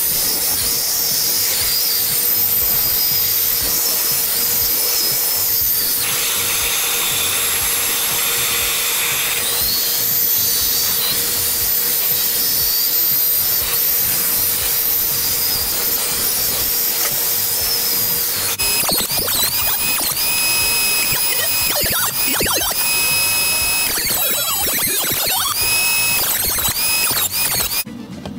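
Band saw running and cutting a curve through a stack of treated pine decking boards, a steady whine with cutting noise. About two-thirds of the way through the sound changes to wavering, shifting tones until it stops just before the end.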